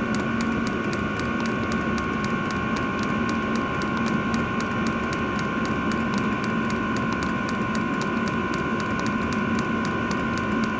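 Diesel air heater running on its maximum setting: steady whine and hum of the combustion and air blower fans, with the fuel dosing pump ticking in a fast, even rhythm.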